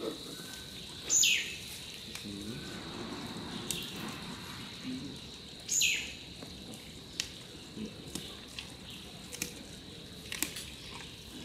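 Giant panda chewing bamboo, with scattered crisp crunches and clicks as the stems and leaves break. Twice, about four and a half seconds apart, a loud, sharp, high sound slides quickly downward in pitch, and a thin steady high whine and faint distant voices run underneath.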